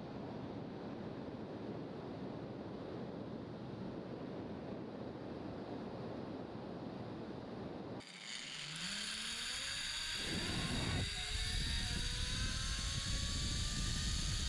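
Steady rushing of water for about the first half. Then a zipline trolley's pulleys run along the steel cable, a whine that rises in pitch as the rider picks up speed, over wind rushing past the microphone.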